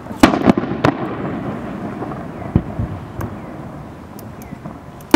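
Aerial firework shells bursting: a cluster of three sharp bangs in the first second, then a couple of lighter pops about two and a half to three seconds in, with a rolling echo lingering between them.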